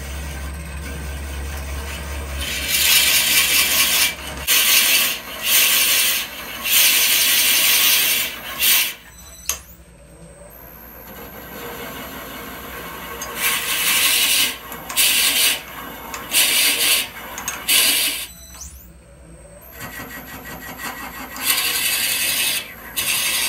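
Forstner bit in a tailstock drill chuck boring into spinning chokecherry end grain on a wood lathe, hollowing out a goblet's cup. It rasps in repeated pushes of a second or two each, with the lathe running steadily between them.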